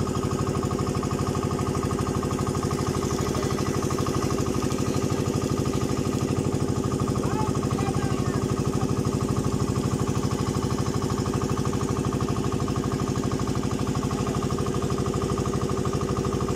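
Small boat's engine running steadily at cruising speed, with a fast, even beat.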